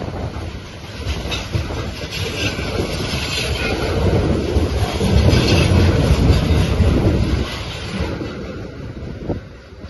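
Freight train of open box wagons rolling past: a loud rumble of wheels on rail with rhythmic clatter, fading away as the last wagon passes a little before the end.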